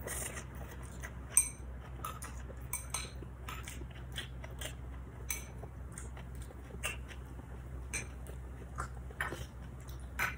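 Chopsticks clinking and tapping against a small bowl of dipping sauce while someone eats, in scattered light clicks over a low steady hum.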